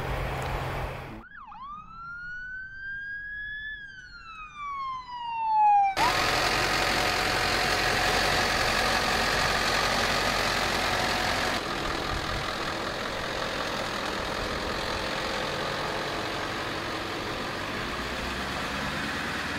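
A single siren wail about a second in, lasting about five seconds: its pitch dips, climbs slowly and then falls away. It cuts off suddenly into a steady rush of vehicle noise as the converted Ford E450 ambulance pulls away.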